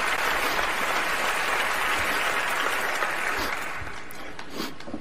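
Audience applauding, the clapping thinning out about three and a half seconds in, followed by a few faint knocks near the end.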